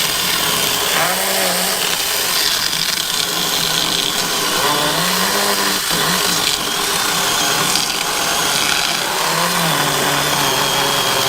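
Goyqgle cordless mini chainsaw running and cutting through a tree log. Its motor pitch swells and falls back about three times as the load on the chain changes.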